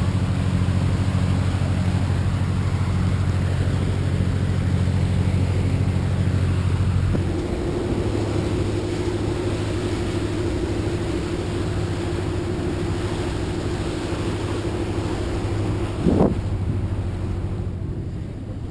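A riverboat's engine drone heard on board, a steady low hum of several stacked tones. About seven seconds in the hum changes to a different note with a steadier higher tone on top, and a brief sharp sound stands out near the end.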